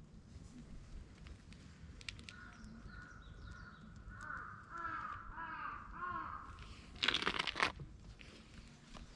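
A crow cawing, a run of short harsh calls with about five in quick succession, followed by a brief loud rustle about seven seconds in.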